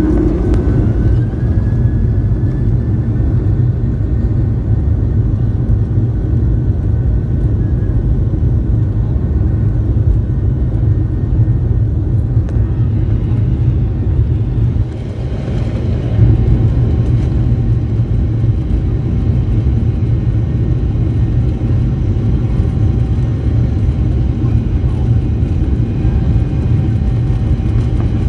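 Boeing 737 jet engines at takeoff power: a steady, heavy rumble with a thin whine over it that rises in pitch over the first couple of seconds as the engines spool up. The loudness dips briefly about halfway through, then stays steady.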